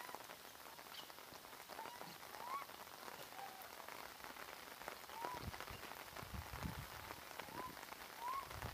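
Light rain pattering on the ground, with a short chirp near 1 kHz that rises and falls, repeated roughly every second.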